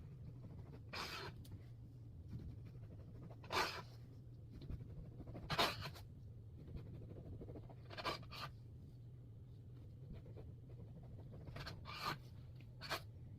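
Short scratchy rustling or scraping sounds, about seven in all, a couple of seconds apart, over a steady low hum.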